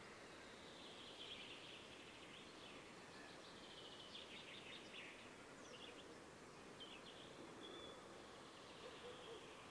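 Faint, high-pitched bird calls: rapid chirping trills, strongest a second or so in until about halfway, then a few short chirps, over a steady background hiss.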